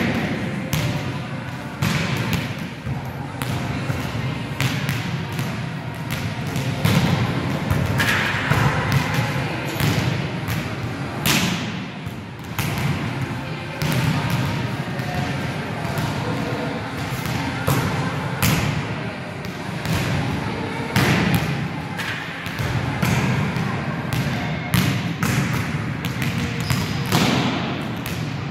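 Volleyballs being struck and bouncing on a sports hall floor, with sharp hits about once a second. People's voices carry on in the background.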